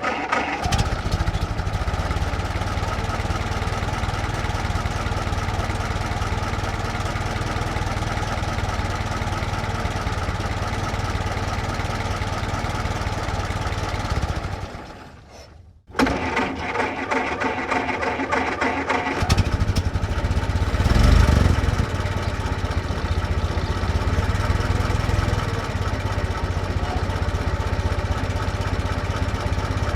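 1924 Ford Model T four-cylinder engine, hand-crank started, catching about half a second in and idling. It dies away and stops about halfway through. After a second crank start it catches again a few seconds later, revs up briefly and settles back to an idle.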